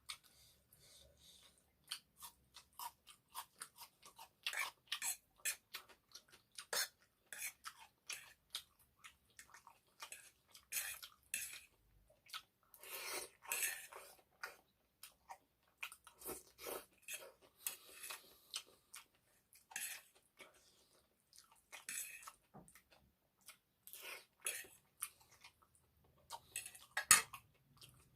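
Close-miked eating of egg noodles and chicken curry: chewing with repeated mouth clicks and smacks, and cutlery clinking against a plate. A sharp click about 27 seconds in is the loudest.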